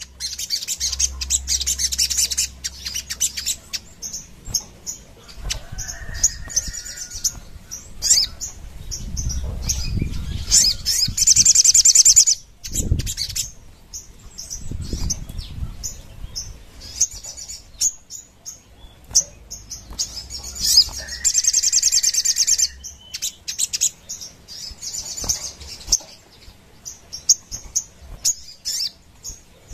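Caged sogon, a small sunbird, singing in repeated bursts of rapid, high-pitched chattering song, each lasting a second or two with short pauses between. A few low thuds come in around the middle.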